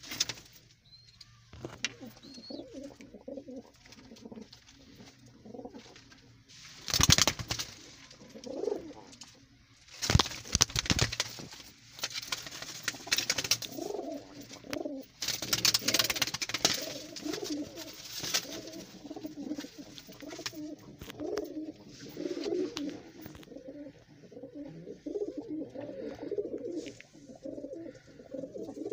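Domestic pigeons cooing over and over, with several loud flurries of wing flapping: one about seven seconds in, another around ten seconds, and a longer one from about fifteen to eighteen seconds.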